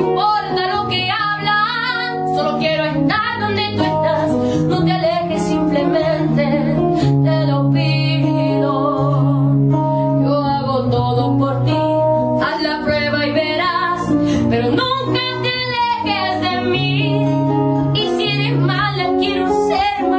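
A woman singing a ballad to the accompaniment of a single acoustic guitar. Her voice carries the melody throughout, over sustained guitar chords.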